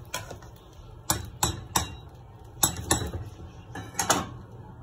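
A metal spoon clinking against the side of a metal cooking pot while rice is stirred into boiling stock: about eight sharp, irregular knocks, some in quick pairs.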